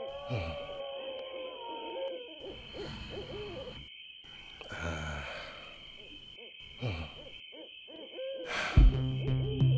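An owl hooting in a night soundscape: one long hoot, then a short one later, over a steady high tone, with a few breaths in between. Low music comes in near the end.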